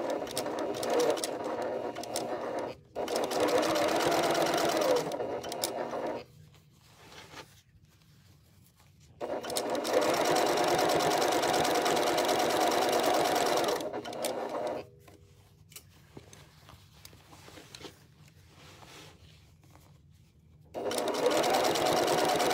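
Electric sewing machine stitching through denim in spurts: it runs, breaks briefly about three seconds in, then stops for about three seconds and again for about six seconds before starting up once more.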